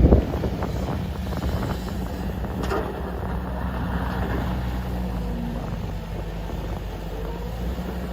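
Diesel engine of a Case 145D excavator running steadily at work, with scattered knocks and clatter.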